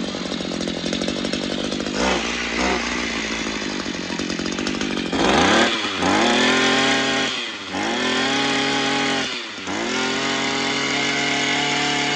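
Hitachi 21cc two-stroke brush cutter engine running on a test start. It runs at low speed, then the throttle is opened several times: each time the revs climb, hold high for a second or more, and drop back.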